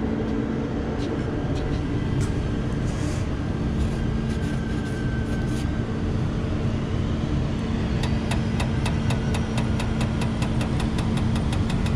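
Rooftop gas-fired make-up air unit running with a steady mechanical hum after being switched back on, as its damper actuator kicks on. A faint rising whine runs through the first half, and a quick, even ticking of several clicks a second starts about eight seconds in.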